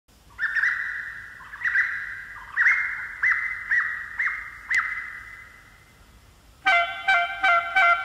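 Opening of a Romagna folk waltz: imitation birdsong, a warbling trill followed by a run of short rising-and-falling chirps about half a second apart that fade away. Near the end the dance band comes in loudly with a wind-instrument lead melody over chords.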